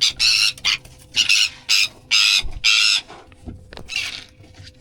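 A bird hooked in the wing by fishing tackle gives about six harsh squawks in quick succession, then one more near the end, in distress as it is being handled.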